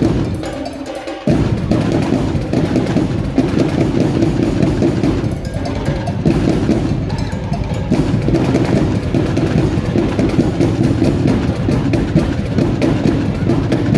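Live marching-band drum section playing a cadence, heavy bass drum beats under snare-type drumming; it comes in at full strength about a second in.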